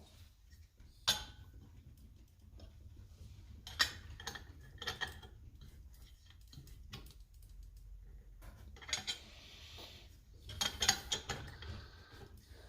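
Small metal parts of a Coleman 530 pocket stove being worked apart by hand: scattered clicks, clinks and short scrapes of metal on metal, with a cluster of them near the end.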